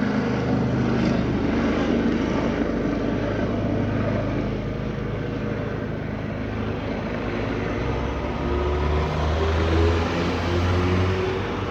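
Police helicopter running overhead: a steady rotor and engine drone, its low tones shifting in pitch about eight seconds in.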